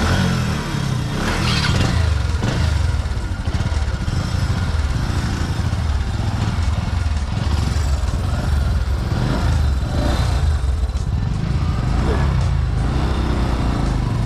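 Motorcycle engine running steadily as the bike pulls away and rides off.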